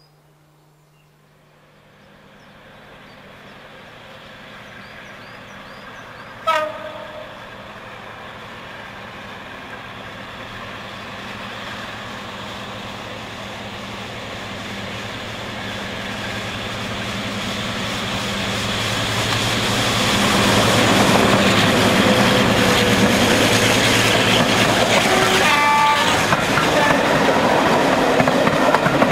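D832 'Onslaught', a Class 42 Warship diesel-hydraulic locomotive, approaching with a train of coaches, its engines growing steadily louder. It gives a short horn blast about six seconds in. The engine noise is loudest after about twenty seconds as it passes, and the coaches then rumble by with wheel clatter.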